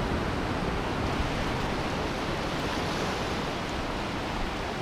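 Gentle surf washing up the beach as a steady hiss, with wind rumbling on the microphone.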